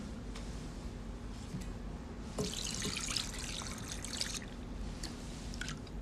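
Water pouring in a thin stream into a glass bowl for about two seconds, starting a little over two seconds in, over a steady low hum.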